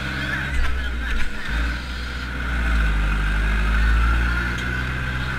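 Zetor 5340 tractor's diesel engine running, heard from inside the cab, its low rumble swelling for a couple of seconds in the middle. A couple of short knocks near the start.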